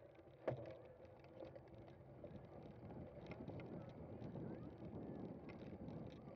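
Cyclocross bike being ridden over rough ground: a steady rumble and rattle from the tyres and frame, with one sharp knock about half a second in.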